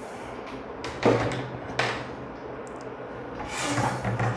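A wooden metre scale and a lens stand being slid and shifted across a wooden tabletop: three short scrapes, the last and longest near the end.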